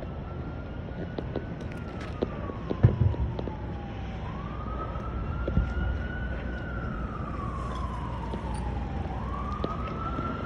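Emergency vehicle siren sounding a slow wail, its pitch climbing and then sliding down about every five seconds, over wind rumbling on the microphone. A sharp knock comes about three seconds in.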